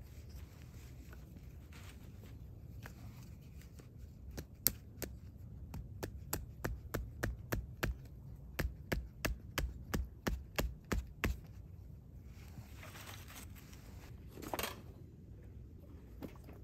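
A hatchet's poll driving a wooden tent stake into the ground: about twenty sharp knocks, roughly three a second, stopping after about seven seconds. A short rustle or scrape follows near the end.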